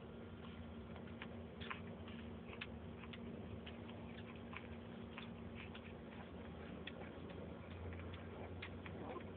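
Newborn pitbull puppies suckling at their mother: faint, irregular small clicks and smacks, about two a second, over a steady low hum.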